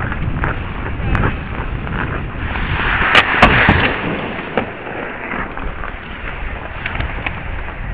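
Ice hockey play heard from a helmet-mounted camera: skate blades carving and scraping the ice, with sharp clacks of sticks and puck. A louder scraping swell builds about three seconds in, topped by two sharp clacks.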